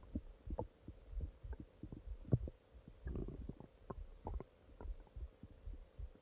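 A person's stomach growling: a quick, irregular string of short gurgles and squelches over a low rumble, busiest about three seconds in.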